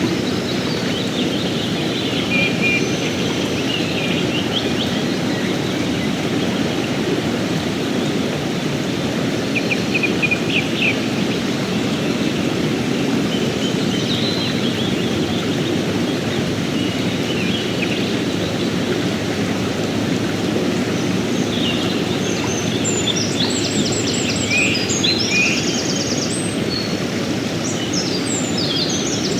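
Fast mountain river rushing steadily over rocks. Birds chirp above it now and then, most busily over the last several seconds.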